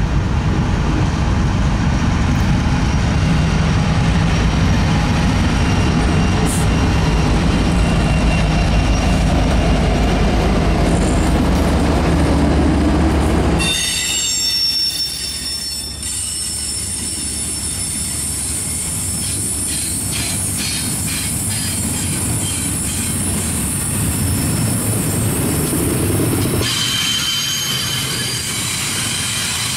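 Union Pacific diesel locomotives, led by a Tier 4 EMD SD70ACe, pass close by under power with a loud, deep engine drone. About fourteen seconds in the engines are gone, and double-stack container cars roll past with high-pitched wheel squeal on the curve and some clickety-clack.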